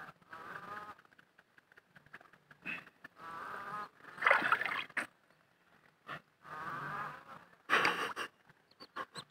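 A man's drawn-out strained groans, three of them about a second each, as he digs his arm into a flooded mud hole after a crab. Two short louder bursts of sloshing mud and water come between them.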